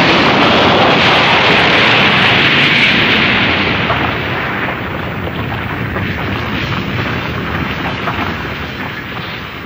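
Explosion sound effect in an animated film: one long rumbling blast, loudest for the first few seconds and then slowly dying away.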